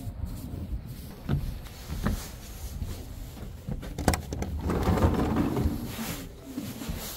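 A few sharp clicks and knocks as a glass-paned door is opened, then a longer rustling scrape of the door and movement through it, about two seconds long.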